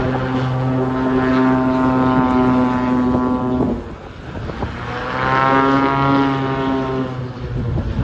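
Single-engine floatplane's piston engine and propeller running at high power with a steady drone. The throttle is chopped abruptly a little under four seconds in. Power comes back about a second later, rising in pitch, then eases off near the end.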